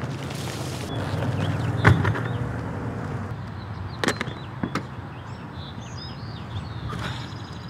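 Knocks and thuds from a bass boat on its trailer as someone pulls its fabric cover off and climbs aboard: one sharp knock about two seconds in and two more around four and five seconds in, with birds chirping.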